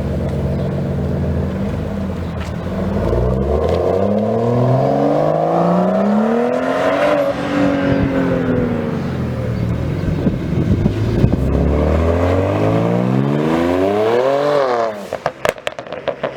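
BMW turbocharged inline-six with a performance exhaust, idling and then revved up and back down twice, the second time more sharply. As the revs drop off near the end, the exhaust burbles and crackles with a quick string of pops.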